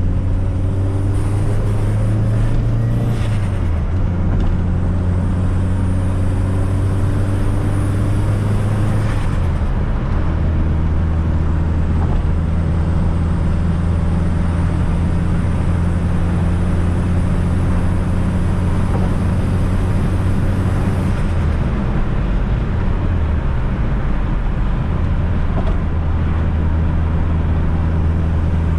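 Fiat Coupe 16V Turbo's turbocharged four-cylinder engine pulling steadily on the road, with tyre and road noise. The engine note drops in pitch about three and a half seconds in, again about nine and a half seconds in, and twice more a little past twenty seconds.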